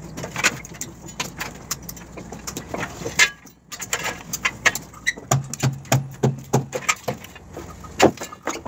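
Scattered metal clinks and knocks of concrete wall formwork being stripped by hand: clips and fittings worked loose and plywood form panels handled.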